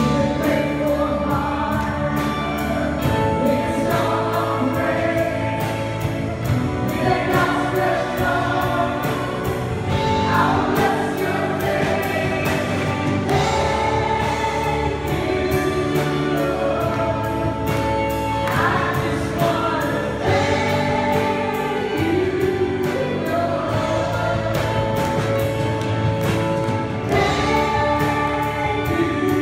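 Live church worship band and singers performing a gospel praise song: several voices singing held, sustained lines over keyboard and drums with a steady beat.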